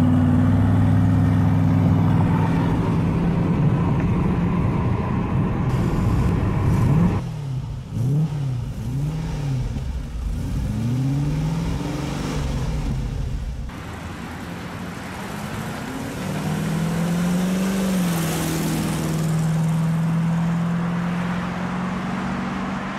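Classic V8 cars: a Bitter CD's 5.4-litre V8 running steadily at motorway speed, then an Aston Martin Lagonda's 5.3-litre V8 revved in short blips about once a second, then pulling away on a steady engine note.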